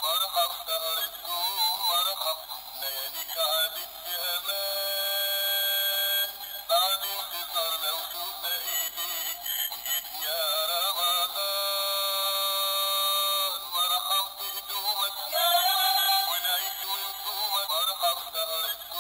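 Background music with a singing voice, thin and without bass, holding long notes about five seconds in and again around eleven to thirteen seconds.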